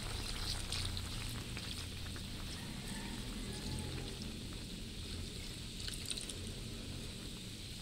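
Pork and coconut milk sizzling and crackling in a hot wok as thick coconut cream is poured in, the sizzle easing a little as the pour goes on.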